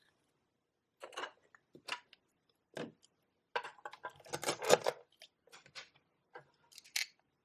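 Velcro pretend-food toys being handled and set down: a series of short knocks, scrapes and rustles, busiest in the middle.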